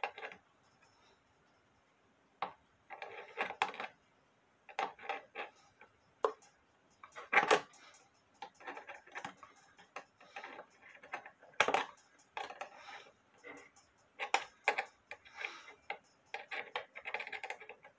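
Irregular clicks, knocks and scrapes of hand tools and metal parts working inside a wooden clock case as the clock movement is tightened into place, with two sharper clicks, one about halfway through and one a little later.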